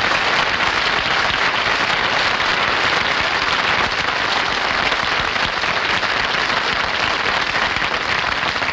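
Studio audience applauding, a dense, steady clapping that holds at full strength throughout.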